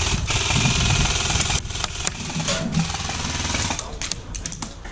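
Gas blowback airsoft Thompson firing a rapid full-auto burst, a fast clatter that stops about a second and a half in. It is followed by scattered sharp clicks and knocks.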